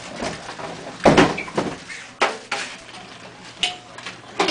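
Office-chair parts being handled and pulled out of a cardboard box: a run of separate knocks and thumps, the loudest about a second in.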